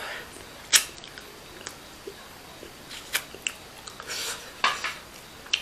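A person eating: chewing and biting food, with a few short, sharp mouth smacks and clicks scattered irregularly.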